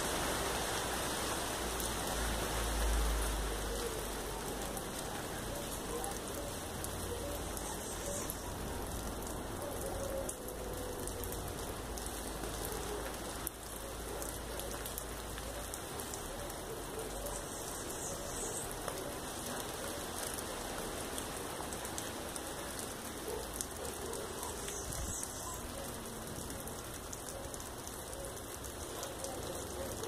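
Steady patter of falling water, like rain on leaves and hard surfaces.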